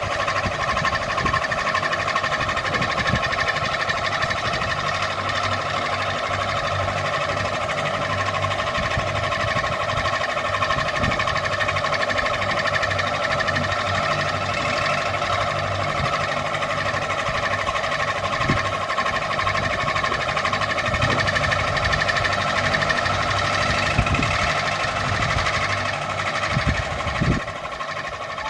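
Ceiling fan running steadily, a constant whir over a low hum with a few faint clicks, dropping slightly in level near the end.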